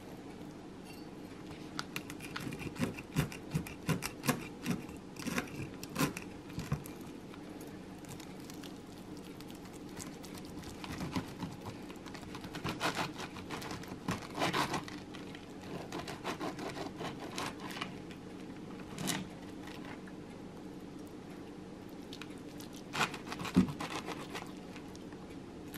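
A long kitchen knife sawing through a thick, crisp-baked pizza crust, in bursts of short crunching, scraping strokes with pauses between, and a sharper knock near the end.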